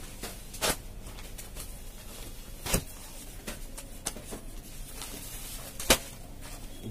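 Quiet handling noise as silk sarees are unfolded and laid out on a tiled floor: three short sharp clicks spread through, the last and loudest near the end, over a faint steady room hum.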